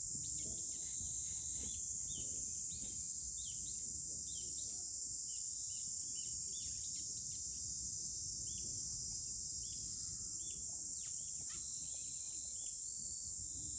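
A steady, high-pitched insect chorus runs throughout, with many short chirps scattered over it and a low rumble underneath.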